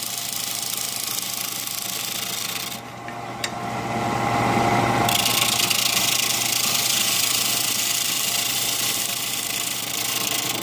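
Wood lathe running with a steady motor hum while a tool held against the spinning wooden stick rubs and scrapes on it. The scraping drops out briefly about three seconds in, then comes back louder.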